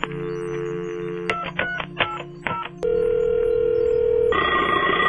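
Telephone line sounds: a steady dial tone, then a quick string of about eight touch-tone keypad beeps dialing a number, then a steady line tone. Near the end a louder, rougher electronic tone cuts in.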